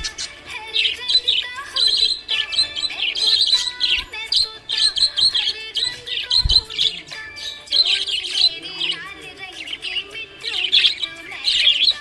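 Small pet parrots chirping and twittering rapidly and continuously, in quick high bursts of chirps with barely a pause.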